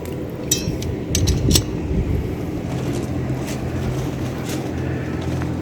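A steady low mechanical hum, like a running engine, with a few sharp clicks and knocks over it.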